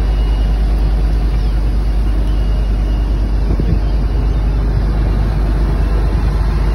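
Fishing boat's engine running steadily under way, a constant low rumble, with the wake water churning behind the stern.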